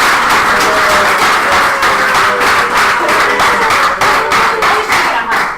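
Audience applause mixed with music with a melody, the clapping dense and continuous; it dies away right at the end.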